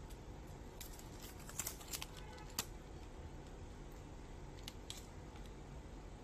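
Light clicks and rattles as a thin leather belt with a metal pin buckle is handled on its plastic hanger, a cluster of them about one to three seconds in and a couple more around five seconds, over a faint steady hum.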